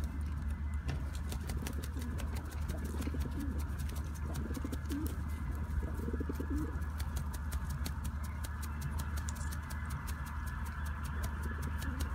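Feral pigeons cooing a few times, low and wavering, in the first half, with many faint short clicks throughout and a steady low rumble underneath.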